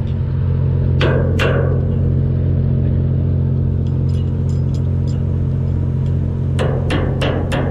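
Hammer striking the steel bail and pin hardware of a trawl door: two sharp metallic blows about a second in, then a quick run of about five near the end, part of knocking the bail down a hole to change the door settings. Under it, the steady low hum of the fishing boat's machinery.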